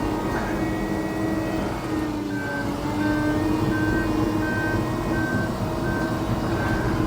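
John Deere 750L crawler dozer's diesel engine running steadily. About two seconds in, its backup alarm starts beeping, about three beeps every two seconds, the signal that the dozer is going into reverse.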